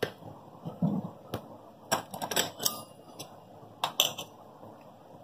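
Scattered light taps and clinks of a stainless steel plate being handled, in small clusters, with a brief low sound about a second in.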